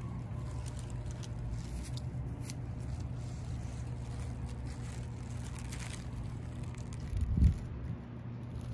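Steady low mechanical hum, with one short low thump about seven seconds in.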